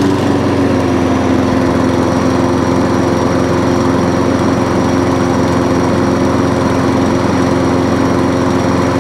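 Petrol engine of a Feider TR5220 lawn mower, just taken off choke, rising slightly in pitch at the start and then running steadily at one fixed speed. It has no idle setting, so this one speed is all the throttle gives.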